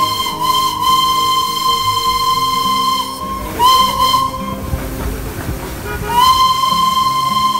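Darjeeling Himalayan Railway steam locomotive's whistle blowing. A long blast stops about three seconds in, a short blast follows, and another long blast starts about six seconds in, over background music.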